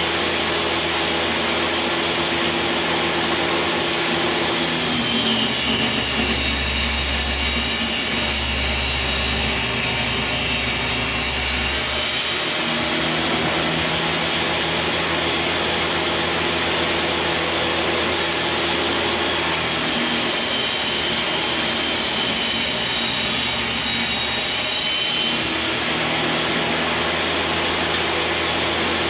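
Skilsaw table saw running steadily and ripping glued wood panel strips lengthwise. The blade note changes under load during two cuts, one about five seconds in and another about twenty seconds in.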